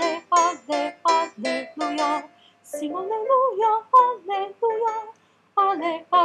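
Voices singing a Spanish choral song in short, rhythmic syllables, on an alto practice track that features the second line, with a brief pause near the end.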